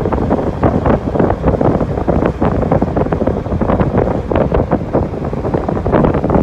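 Wind buffeting a phone's microphone: a loud, gusty rumble with irregular pops.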